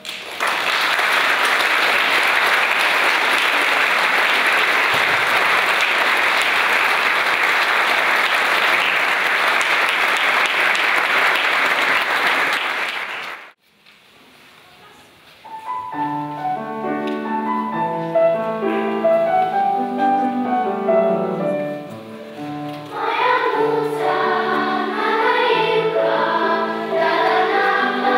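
Audience applauding for about thirteen seconds, stopping abruptly. After a couple of seconds of quiet, a children's choir begins singing, growing fuller about seven seconds later.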